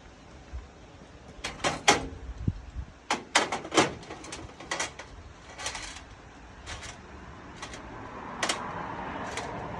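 Metal shed-door hardware being handled: about a dozen sharp clicks and knocks, some in quick pairs, with a steady rushing noise building up near the end.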